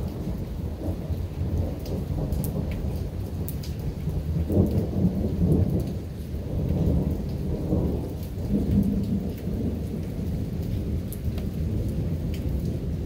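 Thunder rumbling low and continuously, swelling about four seconds in and again around eight seconds, with rain falling and scattered drops ticking.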